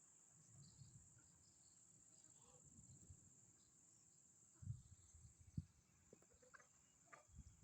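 Faint, steady high-pitched insect chirring, typical of crickets, with a few faint short bird calls. Low bumps and a knock come in the second half.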